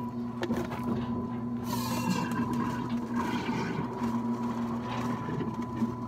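Gassy crude oil and well fluid spurting from a wellhead sample valve into a plastic jug, with a hissing rush starting about two seconds in. A steady machine hum runs underneath throughout.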